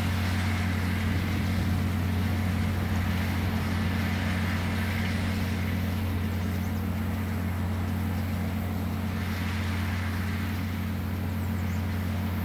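International Harvester 1066 tractor's diesel engine running steadily at constant speed while pulling a round baler, a low even drone with no changes.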